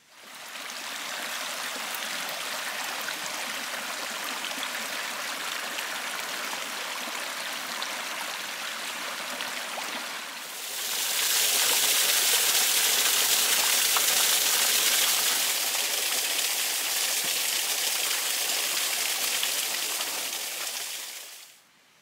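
Small waterfall splashing over boulders into a shallow pool: a steady rush of water that grows louder and brighter about halfway through.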